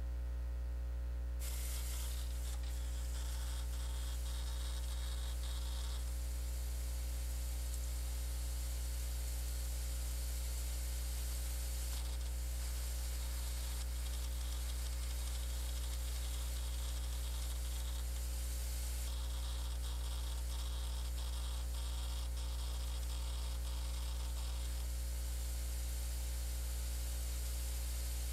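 Hard disk drives running inside a desktop computer case: a steady low hum with a hiss over it that shifts in level a few times.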